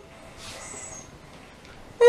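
Quiet room tone, with a brief faint hiss about half a second in.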